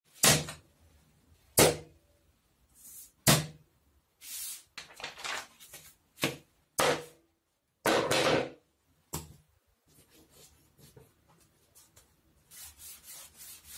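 Three sharp knocks on a wooden tabletop in the first few seconds as things are set down, then paper rustling and sliding as printed paper templates are handled and smoothed onto MDF cutouts.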